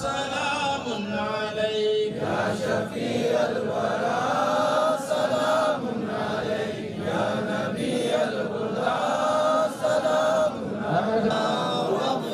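Men's voices chanting a melodic, drawn-out Islamic devotional recitation.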